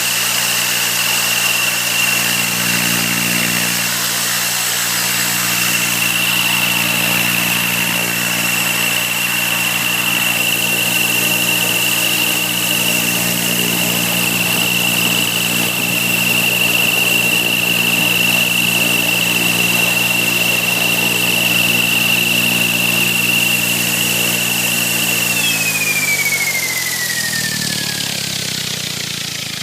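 Protos 500 Stretch running with a steady, high-pitched squeal over its low drive hum. About 25 seconds in it is switched off, and the squeal and hum fall in pitch together as it runs down. The squeal persists even with the belt and bearings checked and the counter-bearing loosened.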